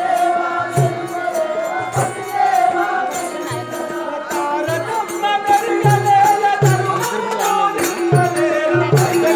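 Live music for a stage play: held melody notes over a hand drum beating a rhythm of low strokes.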